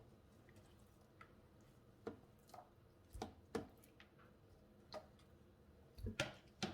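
Faint, scattered light knocks and clicks of chicken pieces being set into a baking pan, about eight in all, with a louder pair near the end.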